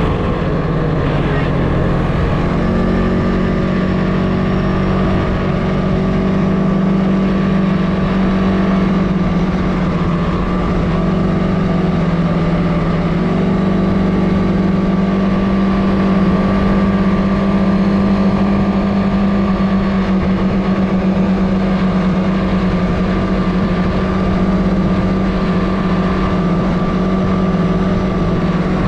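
CFMOTO ATV engine running at a nearly constant pitch while the quad is being ridden.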